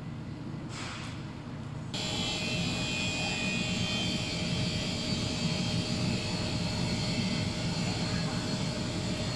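Cooling system of a handheld fiber laser welding machine running: a steady low hum, then about two seconds in a louder, steady fan-like whir with a high whine layered in, which cuts off suddenly near the end.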